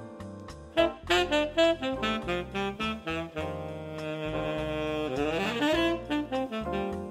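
Rampone & Cazzani R1 Jazz tenor saxophone, played with a JodyJazz Giant mouthpiece and a Fiberreed hemp medium reed, playing a jazz melody: quick phrases around one long held note about halfway through.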